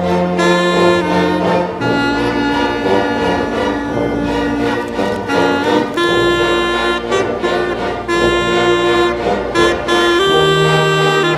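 Orchestra of strings, clarinets and brass playing, with held chords that change every second or two over a low bass line.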